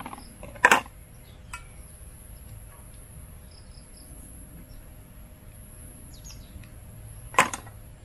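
Camping cookware being packed away: a sharp clatter about a second in as an item is dropped into a metal camping pot, and another near the end as the folding stove goes in. A steady high-pitched insect drone runs underneath.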